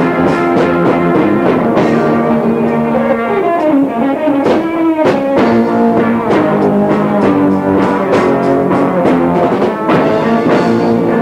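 Live 1970s rock band playing, with electric guitars and a drum kit, and a sliding pitch about four seconds in. It was recorded from down the hall on a faulty cassette recorder, so an earlier recording on the tape bleeds through and the vocals are barely audible.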